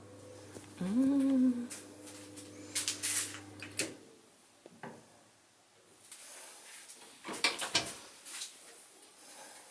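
A built-in oven running with a steady low hum that stops about four seconds in as its control knob is turned off. A short rising voice-like call comes about a second in. Clicks and knocks follow, with a louder clatter near the end as the oven door is opened.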